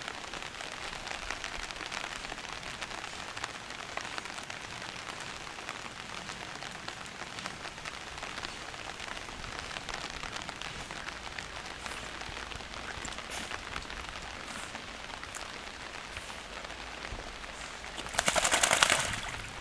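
Light rain pattering steadily, a fine crackling hiss of many small drops. About a second and a half before the end there is a louder rushing burst that lasts roughly a second.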